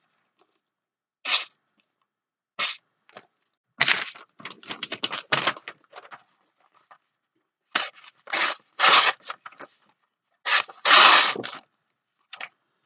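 Short rasping strokes of a knife blade, coming irregularly with pauses between them. The last strokes, near the end, are the longest and loudest.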